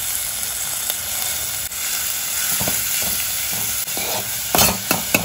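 Chopped onions sizzling steadily in hot oil in a pan. Near the end a spatula starts stirring them, with quick scrapes and knocks against the pan over the sizzle.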